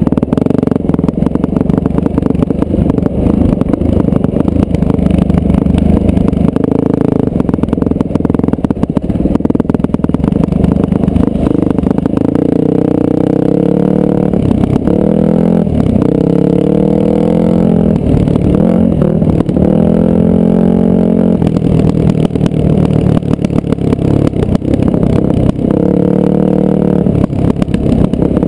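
Dirt bike engine running under load on the trail, its revs climbing and dropping again and again through the middle stretch as the rider works the throttle.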